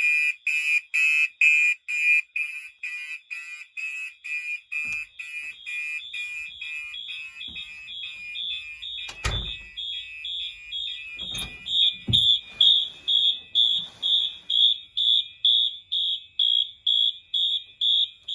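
Fire alarm horns sounding in march time, a rapid on-off pulsing at a little over two pulses a second, after a T-bar pull station has been pulled. Partway through, a higher-pitched horn becomes the loudest, and two sharp knocks come near the middle.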